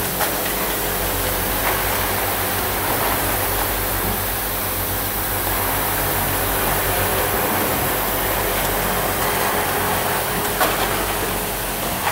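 Automatic deodorant-stick assembly machine running, fed by vibratory bowl feeders and driven by pneumatic cylinders: a steady hum and hiss with a few sharp clicks, one near the end.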